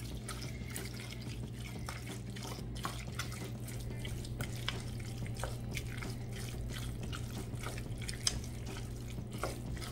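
A plastic spoon stirring tuna salad in a stainless steel bowl: wet squishing with irregular small clicks of the spoon against the bowl, over a steady low hum.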